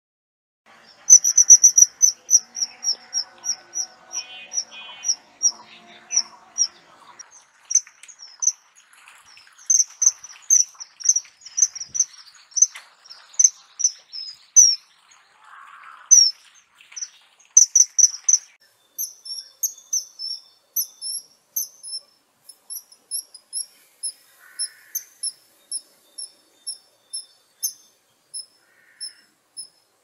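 Common kingfisher calling: short, shrill, high whistled notes repeated about twice a second in long series, with a brief break in the middle and softer calls in the second half.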